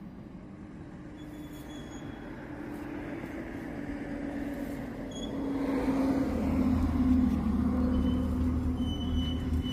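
A motor vehicle approaching, its engine hum and road noise growing steadily louder for about six seconds, then holding with a low rumble.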